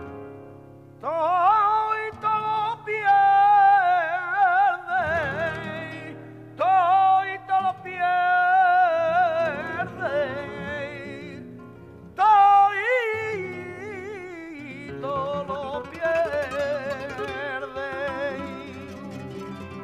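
Flamenco cante: a singer's long, melismatic phrases with a wavering, heavily ornamented pitch, four phrases in all, over flamenco guitar accompaniment.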